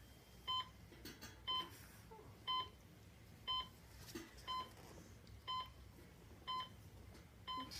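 An electronic beeper sounding steadily, one short beep a second, eight times.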